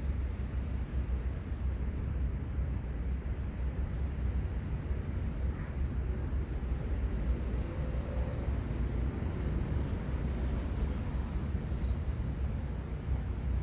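Steady low outdoor rumble by the sea, with no single event standing out.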